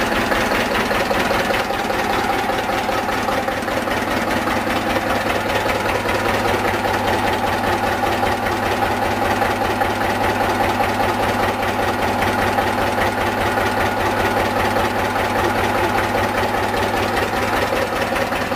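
Lister CS 6/1 slow-speed single-cylinder diesel running steadily with an even beat, driving a generator that is making power.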